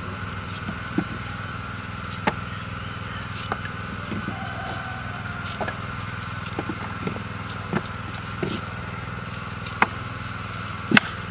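Steady drone of insects, with scattered sharp knocks and clicks every second or two.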